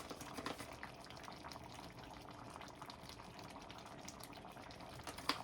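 Pot of fish, okra and coconut milk simmering: a soft, steady bubbling with many small pops. A single sharp tap a little before the end.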